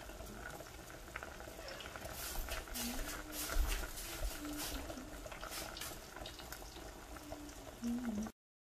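Pot of water with broccoli florets at a rolling boil on medium heat: a steady bubbling with many small pops. It cuts off abruptly near the end.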